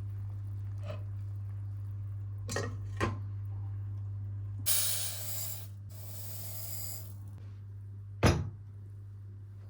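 Household handling sounds over a steady low hum: a few light knocks, two short bursts of hissing or rustling noise just past the middle, and a sharp knock near the end, loudest of all.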